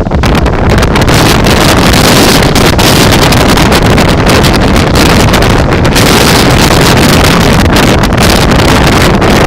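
Strong typhoon wind blasting against the microphone. It makes a loud, continuous rumbling roar that barely lets up.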